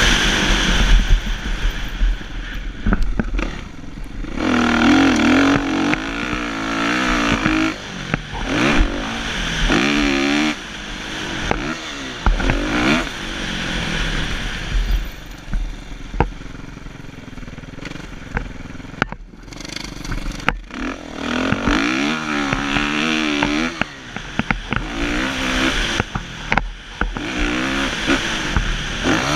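Kawasaki KX450F's four-stroke single-cylinder engine at racing pace. It revs up hard and drops off again and again as the throttle is opened and chopped through the gears, with sharp knocks and rattles scattered through.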